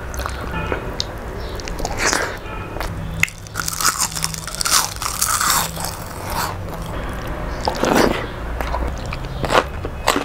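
Close-miked eating sounds: a person chewing mouthfuls of rice and curry eaten by hand, with irregular crunches and mouth clicks. Near the end comes a crisp bite into a raw green chilli.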